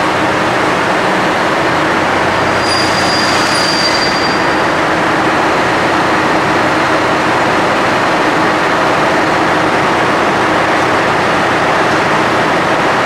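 KiHa 183 series diesel train running its diesel engines at a station platform: a loud, steady rumble and hum, with a brief high squeal about three seconds in.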